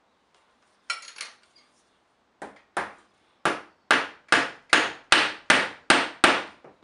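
Hammer driving a small nail through a wooden strip into plywood: a tap about a second in, two light taps to start the nail, then a steady run of about nine harder blows, a little more than two a second.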